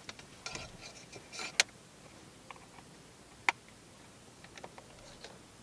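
Cables being handled and plugged in: quiet rustling and small clicks, with two sharper clicks about a second and a half in and again two seconds later.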